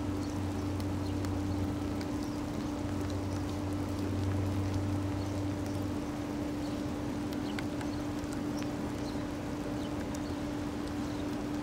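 Diesel locomotive idling with a steady hum; a lower rumble beneath it drops away about six seconds in. Rain ticks on the plastic-wrapped camera.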